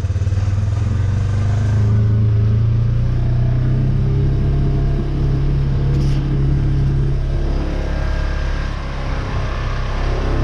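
Engine of the vehicle towing a makeshift field drag, running hard in low gear under load as it pulls across rough ground.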